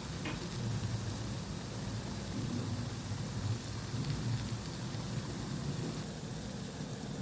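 Food frying in hot oil in a pan, a steady sizzle throughout.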